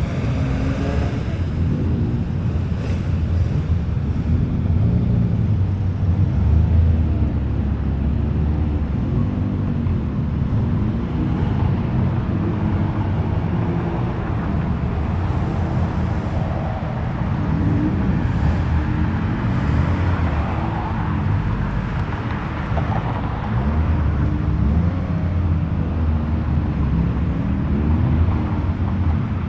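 Japanese cars driving slowly past one after another, engines running with the note rising and falling as they pull through.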